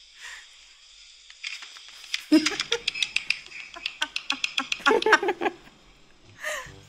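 A man and a woman laughing hard in rapid, breathy bursts, starting about two seconds in and lasting about three seconds.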